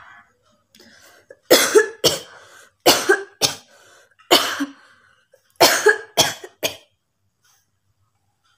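A woman coughing on purpose for a coughing challenge: a run of about eight sharp coughs in groups of two or three, stopping about seven seconds in. Her throat is dry and hoarse from repeated coughing.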